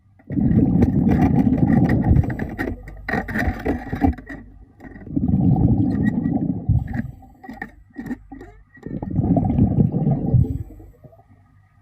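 A diver's exhaled breath bubbling out underwater in three rumbling bursts of about two seconds each, with quiet pauses for the in-breath between them. A few clicks and scrapes come about three to four seconds in.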